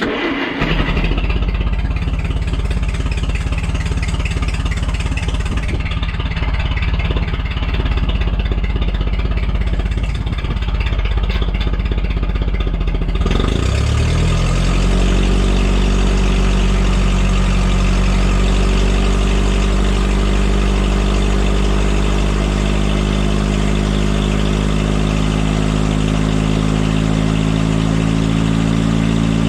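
Propane forklift engine running, rough and noisy at first, then changing about 14 seconds in to a smoother, steady idle. It is being left to run up to operating temperature.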